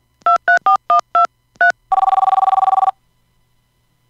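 Phone keypad tones as a number is dialled: about seven short two-note beeps in quick succession. These are followed by one burst of a pulsing ringing tone lasting about a second, as the call rings out.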